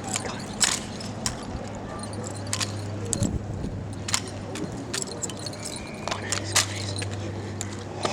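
Drill rifles being handled by an exhibition rifle team, making sharp, irregular slaps and clacks over a steady low hum.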